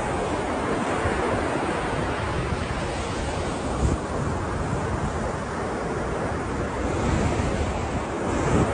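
Ocean surf: waves breaking and washing in a continuous steady roar, heaviest in the low end, with a brief swell just before the middle.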